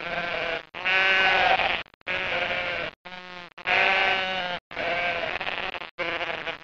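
A sheep bleating, about seven baas in a row, each under a second long with short gaps between them; the fourth is fainter than the rest.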